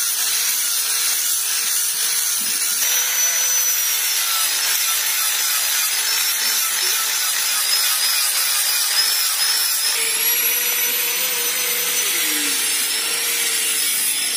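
Electric angle grinder with an abrasive disc grinding a boat propeller blade: a steady motor whine with the hiss of the disc rubbing across the blade.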